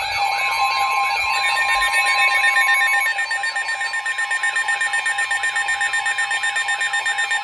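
Emergency weather alert tones sounding together: a warbling siren-like tone, joined about a second in by a steady single alert tone like the NOAA Weather Radio warning alarm, with a rapid, even beeping from about three seconds in. The alert tones announce a new severe thunderstorm warning.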